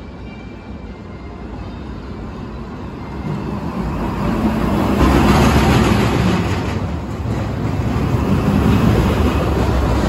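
Empty Arrow Dynamics steel roller coaster train rumbling along its tubular steel track, growing louder from about three seconds in, loudest as it passes close around the middle, with a second swell near the end.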